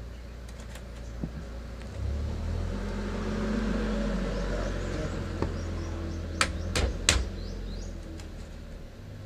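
Motorcycle muffler being worked onto its exhaust pipe by hand: three sharp metal clicks about six to seven seconds in. Underneath is a steady low hum and a rumble that swells and fades from about two seconds in.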